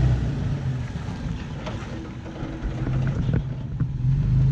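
Toyota FJ Cruiser's 4.0-litre V6 engine running at low revs as the truck crawls over a boulder, with a few sharp knocks partway through.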